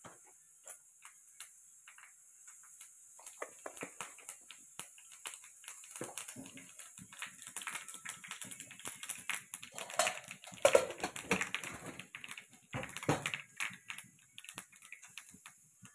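Mustard and fenugreek seeds popping and crackling in hot ghee in a small steel tadka pan: a scatter of sharp pops that grows into a thick, rapid crackle from about six seconds in and thins out near the end, the sign that the tempering is ready.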